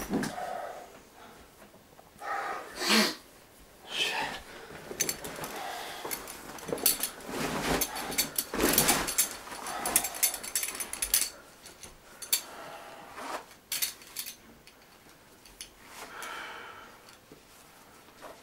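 A man breathing heavily in gasps every few seconds, with bedding rustling and a run of small clicks and knocks from handling things in the middle.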